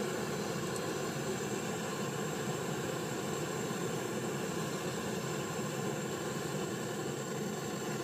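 Hand-held gas brazing torch flame blowing with a steady rushing hiss while it heats a copper pipe joint on a refrigerator compressor for brazing.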